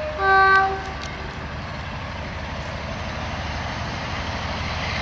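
Diesel locomotive sounding a short, loud horn blast just after the start, then the steady low drone of its engine working under load as the train approaches.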